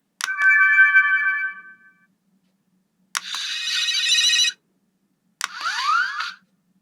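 Aurachanger Memorial Edition transformation brace toy playing electronic sound effects from its speaker as its mode is switched. Each press gives a click followed by a sound: first a ringing chime of several steady tones, then after a pause a shimmering sparkle, then a few rising sweeps.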